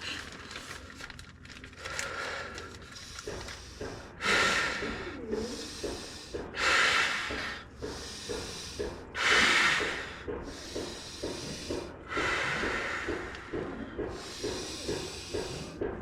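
A man blowing up a sleeping mat by breath: five long rushes of air, with heavy panting between blows that settles into short quick puffs in the second half. He is out of breath and dizzy from the effort.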